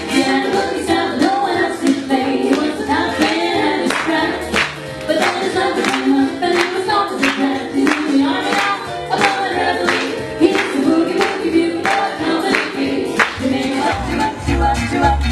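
Female vocal trio singing swing-style close harmony over a steady beat. About 14 seconds in, the music changes to a different number with a deep bass.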